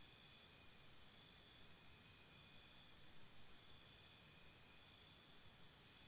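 Crickets chirping faintly in a steady, high-pitched rhythm of about four chirps a second. The chirps weaken through the middle and come back stronger near the end.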